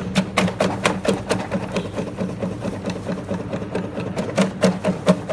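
Electric vegetable dicing machine running: a steady motor hum with rapid, sharp clacks, roughly three or four a second, from the cutting mechanism chopping food into cubes.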